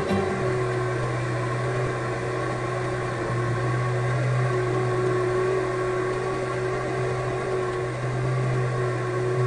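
Ceiling fan's electric motor running with a steady hum.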